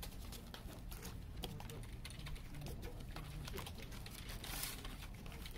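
Cardboard mini-LP CD sleeves and paper inserts handled and shuffled by hand: a run of small clicks and taps, with a brief louder rustle about four and a half seconds in.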